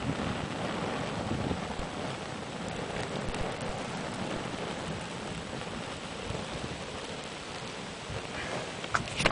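Flames burning over leather bootees: a steady rushing fire noise with fine crackling, and a few sharper clicks near the end.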